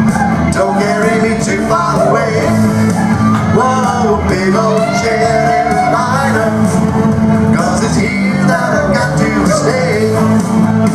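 Two square dance callers singing a singing call into handheld microphones over a country-style backing track.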